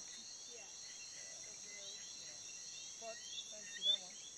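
Steady, high-pitched chorus of crickets or other insects, with short chirps repeating over it.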